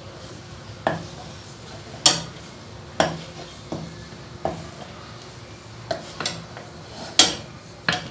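Wooden spoon knocking and scraping against the sides of an aluminium cooking pot while stirring a stiff white mash: about nine sharp knocks at irregular intervals.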